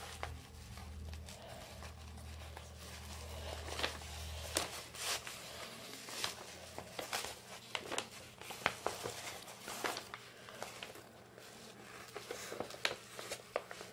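Plastic release film being lifted from the sticky edges of a diamond-painting canvas, crinkling and crackling faintly with scattered small clicks.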